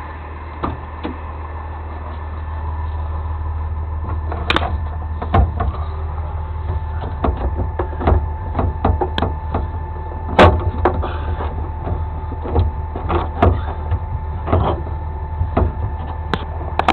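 A truck engine idling steadily, with a faint steady whine over it. From about four seconds in, irregular knocks and clanks come every second or so.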